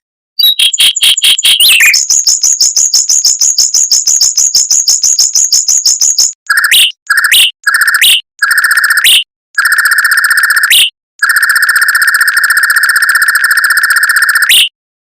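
Mockingbird singing a fast rolled trill of rapidly repeated notes, about ten a second, for some six seconds. Then come several buzzy trills, each ending in a quick upward slur, with the last two held longer.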